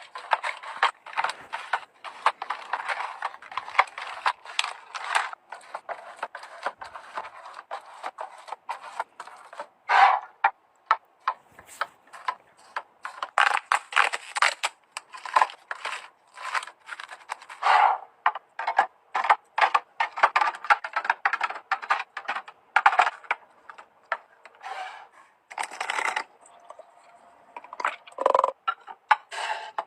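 Irregular clatter of containers and food packages being handled: rapid clicks, taps and scrapes with a few louder knocks, such as around ten seconds in and near eighteen seconds.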